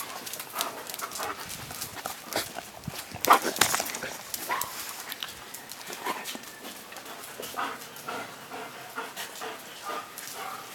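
Borzois giving short whines and panting, with scattered clicks and knocks throughout. The loudest is a cluster of knocks about three and a half seconds in.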